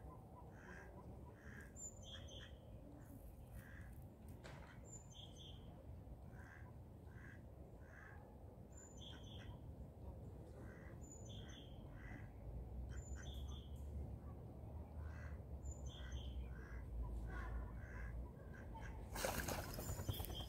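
Birds calling over a low steady background: short calls repeated about once a second, with high, falling chirps every couple of seconds. About a second before the end comes a brief, loud rustle.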